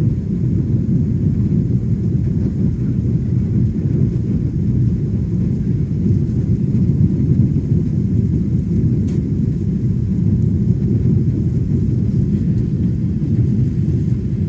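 Airliner taking off: a steady, loud low rumble of jet engines and airframe.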